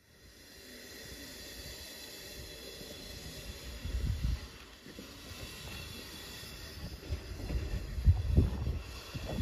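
Steam tram locomotive hissing steam, with low rumbling thuds from the train on the track that swell about four seconds in and again near the end.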